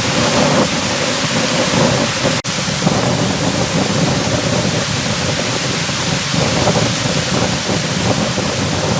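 Strong gusty wind blowing hard across the microphone: a loud, steady rush of noise, with one brief dip about two and a half seconds in.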